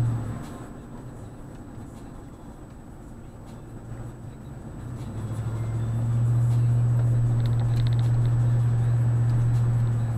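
Car cabin noise while driving at about 25 mph, heard from inside the car. A steady low drone fades about half a second in, then swells back from about five seconds in and holds.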